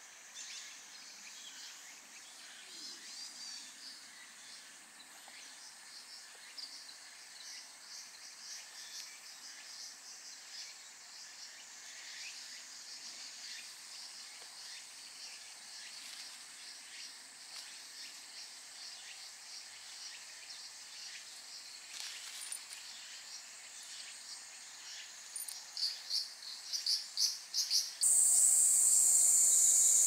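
Cicadas calling: a faint, rapidly pulsing buzz that grows louder in the last few seconds, then gives way near the end to a much louder steady shrill.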